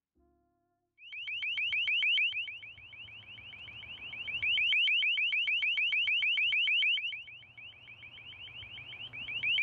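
Long-range acoustic device (LRAD) sounding its warning tone: a fast, steady warble of rising chirps that starts about a second in. The tone swells loud and falls back twice as the device's narrow beam is turned toward and away from the microphone.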